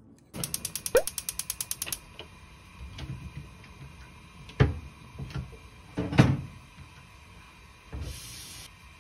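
Gas range burner's spark igniter clicking rapidly, about a dozen ticks a second for under two seconds. A few separate knocks follow, and a short hiss comes near the end.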